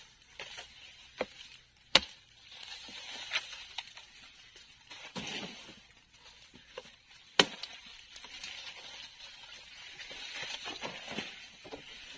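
Sugar cane being cut with a blade: lighter knocks and two sharp, loud chopping strikes about five seconds apart, with rustling of leaves and stalks in between.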